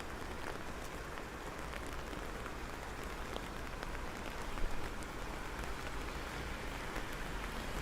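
Steady rain falling on hard surfaces, with scattered drops ticking close by and one sharper tap about four and a half seconds in.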